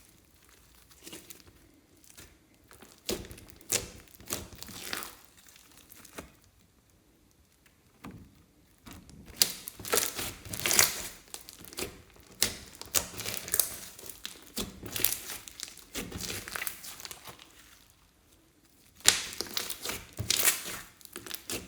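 Slime being squeezed and worked by hand, giving crackling, popping and sticky clicks in bursts, with a couple of quiet pauses of a few seconds.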